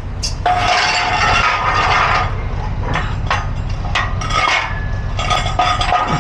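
Bursts of metallic clinking and rattling, a few seconds apart, over a steady low rumble.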